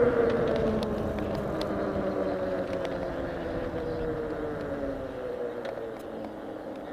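A vehicle's motor hum, a single pitched drone that falls slowly in pitch and fades away, with faint scattered ticks over it.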